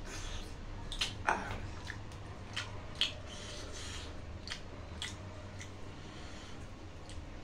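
Eating by hand: chewing and lip smacks over pork leg and rice, with fingers scraping and mixing rice on the plates, giving scattered short clicks and smacks over a steady low hum.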